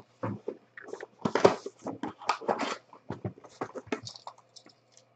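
Hands handling a trading-card box and a wrapped card pack: irregular crinkling, rustling and light knocks of cardboard and wrapper, over a faint steady low hum.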